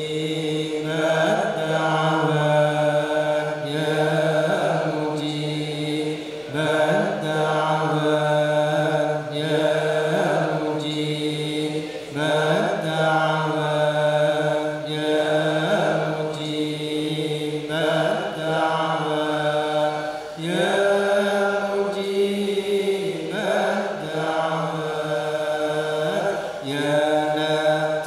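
Voices chanting Sufi dhikr together in unison, a short phrase repeated over and over above a held low note. The pitch of the chant steps up about twenty seconds in.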